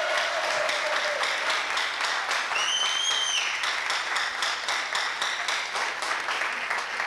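Audience applauding, dense clapping throughout, with a single rising-and-falling whistle from the crowd about three seconds in. A drawn-out shout from the audience trails off in the first second.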